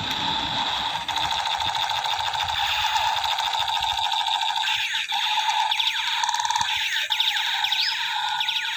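Battery-powered toy AK-47 playing its electronic firing sound effect: a steady, fast electronic rattle, with a string of falling zaps in the second half.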